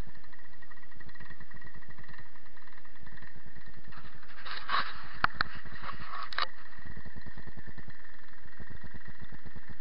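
Paramotor engine idling steadily with an even low pulsing. About four seconds in there is a short burst of rustling with a few sharp clicks close to the microphone, lasting a couple of seconds.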